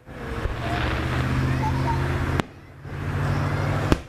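Fireworks: two sharp bangs of aerial shells bursting, about a second and a half apart, the second the louder, with the sound dropping out briefly after each. Under them runs a steady low hum like an idling vehicle engine.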